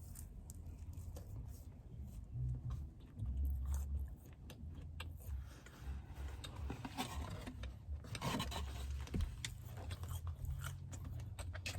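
A person chewing a bite of blueberry mochi donut close to the microphone, with many small wet mouth clicks.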